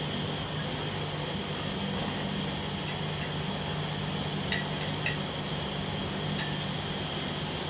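Wood chipper running steadily, a constant low hum with a high whine over it, and a few sharp clicks about halfway through.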